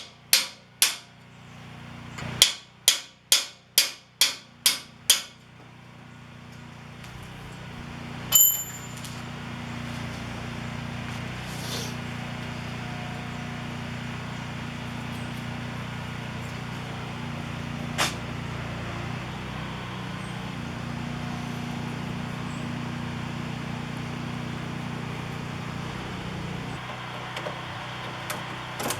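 A run of sharp metal strikes: three at the start, then seven evenly spaced at about two a second, like hammer blows on sheet metal. About eight seconds in comes a single ringing metallic clang. A steady low hum runs under most of the rest, with one more sharp knock midway.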